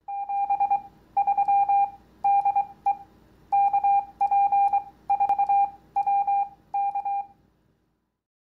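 Morse code beeps: a single steady-pitched tone keyed on and off in about nine short groups of dots and dashes, stopping about seven and a half seconds in.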